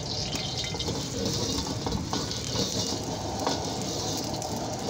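Steady rushing hiss from a commercial wok stove, its gas burner firing under a hot, oiled wok, with a few light knocks.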